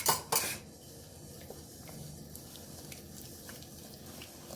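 Two sharp clinks of a spoon against the bowl at the start, then soft wet squishing as masala paste (chilli powder, spices, ginger-garlic paste, lemon juice and oil) is mixed by hand.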